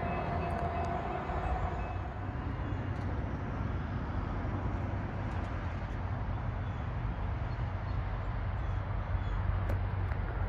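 Low steady rumble of a CT Rail Hartford Line diesel passenger train approaching from a distance. In the first couple of seconds a held tone from the previous train scene fades out.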